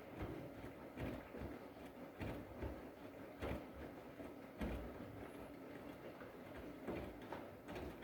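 Washing machine drum turning a load of blankets in the wash, with a swishing, thudding surge about once a second as the wet load tumbles.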